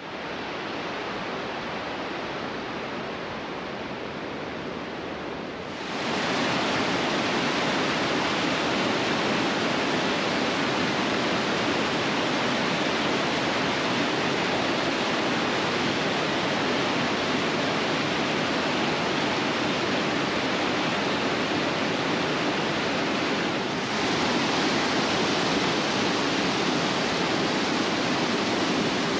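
Mountain creek rushing through white-water rapids over boulders: a steady, even rush of water that gets louder about six seconds in.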